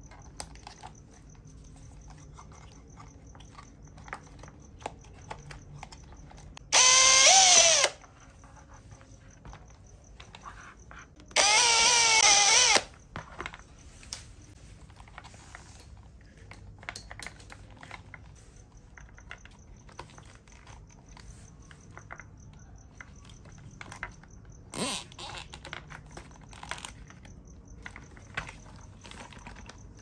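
Cordless drill running in two short bursts, about a second and a second and a half long, boring into an RC car's plastic chassis. Near the end, a short zip of a cable tie being pulled tight, with small handling clicks in between.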